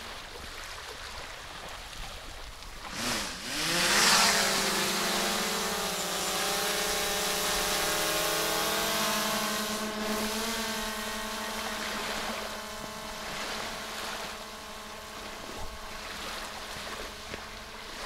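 Quadcopter drone's propellers spinning up for takeoff about three seconds in, then a steady multi-tone whine as it lifts off and flies, growing fainter toward the end as it moves away.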